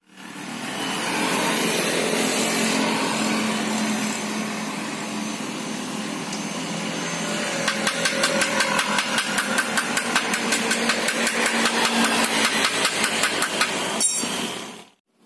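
Arc (stick) welding on a scooter's steel exhaust neck pipe: a steady crackling hiss that turns into a fast, even crackle about halfway through.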